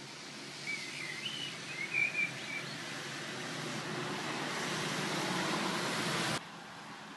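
Red city bus approaching and pulling in on a wet road, its tyre hiss and engine noise growing louder, then cutting off suddenly about six seconds in. A few high chirps sound between one and two and a half seconds in.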